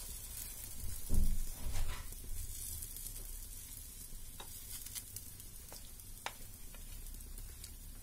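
Chickpea-flour batter sizzling in hot oil on an iron tawa as a steel spoon spreads it, with scattered clicks and scrapes of the spoon on the tawa. A low thump about a second in is the loudest sound.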